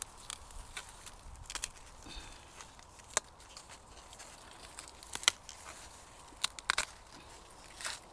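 Maize leaves and husks rustling and crackling as a hand parts and feels the young corn ears, with a few sharp snaps scattered irregularly through it.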